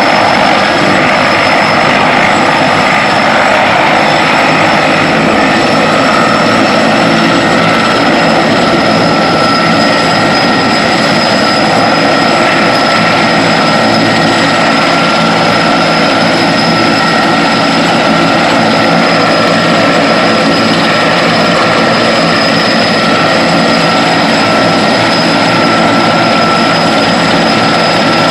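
Large turbine firefighting helicopter running, a loud steady roar with a constant high turbine whine over it.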